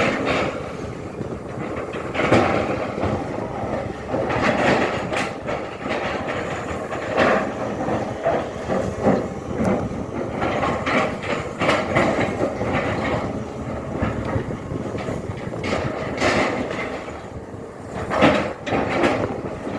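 SANY excavator digging: its engine runs steadily under load, with irregular metallic clanks, knocks and scrapes from the bucket and boom. The loudest knock comes near the end.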